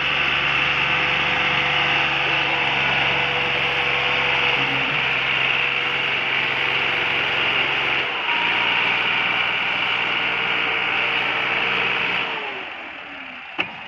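Massey Ferguson 260 tractor's three-cylinder diesel engine running hard under heavy load, pulling a loaded trolley up a sand heap. The steady engine note dips briefly about eight seconds in and drops away sharply near the end.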